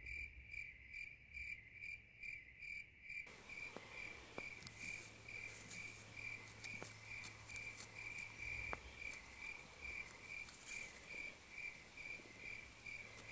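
A cricket chirping faintly and steadily, one short high chirp about twice a second, with a few faint ticks; a soft hiss comes in about three seconds in.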